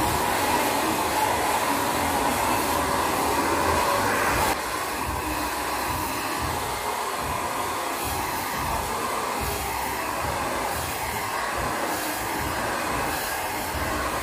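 A small corded handheld fan-motor appliance running steadily with a rushing of air as it is worked over an upholstered armchair. It drops a little in level about four and a half seconds in, then carries on evenly.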